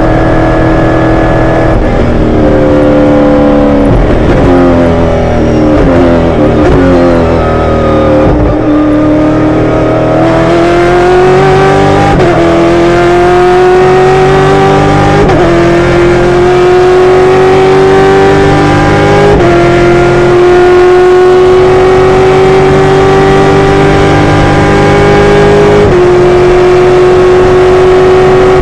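Naturally aspirated V8 engine under hard driving. Its pitch steps down through several downshifts over the first ten seconds or so, then climbs through the gears, dropping sharply at each of four upshifts.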